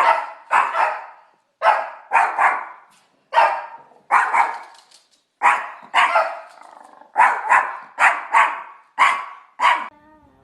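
A dog barking over and over, about two barks a second, often in quick pairs, stopping shortly before the end.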